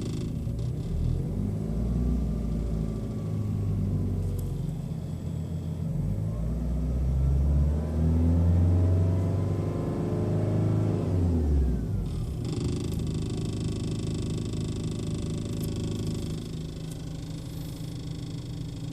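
BMW 3 Series diesel engine idling, then revved slowly for about ten seconds before dropping back to idle. The owner reports a rattle at idle that he suspects comes from behind the dashboard.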